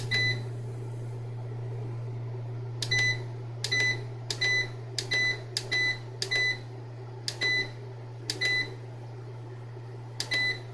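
Solar hybrid inverter's front-panel buttons being pressed to step through its display readings: about ten short, high electronic beeps, each with a faint click, at irregular spacing, over the unit's steady low hum.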